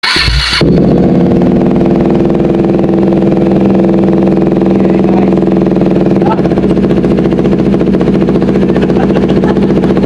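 KTM RC 390's single-cylinder engine starting up and then idling steadily through an Austin Racing aftermarket muffler, with its resonator and catalytic converter swapped out for a louder exhaust.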